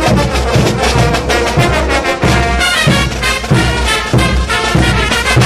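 Large Andean brass band playing: tubas, trumpets and trombones over a steady beat of bass drums and cymbals.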